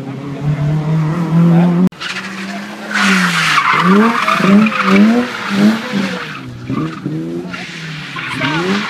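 BMW E30 rally car sliding through a tight corner: a burst of tyre skid, then the engine revving hard in quick repeated rising surges, about two a second, as it powers out of the turn. A second burst of tyre noise comes about seven seconds in.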